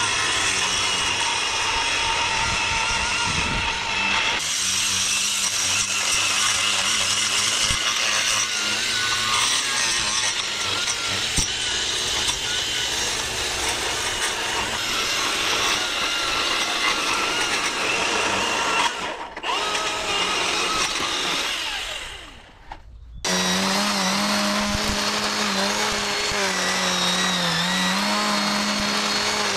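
String trimmer running steadily at speed as its line cuts grass along a lawn edge. The sound drops out briefly twice, about two-thirds and three-quarters of the way through.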